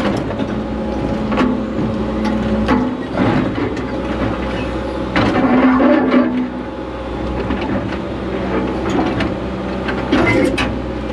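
John Deere excavator's diesel engine running steadily, heard from inside the cab, as the bucket works through rubble: rocks knock and clatter against the bucket and each other every second or few, with a louder stretch about five seconds in.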